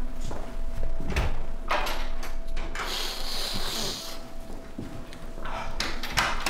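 Door and footstep knocks, then a long hard sniff of about a second as a line of white powder is snorted off a tabletop.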